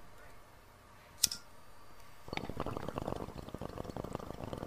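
A sharp click about a second in, then from about two seconds in a dense bubbling crackle of liquid.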